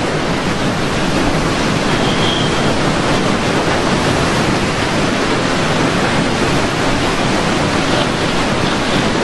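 Hurricane wind and rain making a steady, loud rush of noise.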